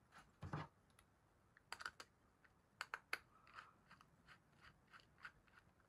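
Faint, scattered clicks and taps of small screws and 3D-printed plastic toolhead parts being handled and fitted together by hand.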